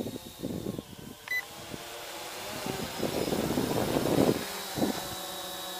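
Bayangtoys X21 brushless quadcopter's motors humming steadily overhead, with gusts of wind rushing on the microphone, loudest a little past the middle. One short electronic beep about a second in.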